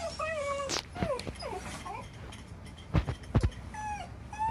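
A Shiba Inu whining and whimpering in a string of short, falling cries, a pained complaint after being swatted by a cat. Two sharp knocks sound about three seconds in.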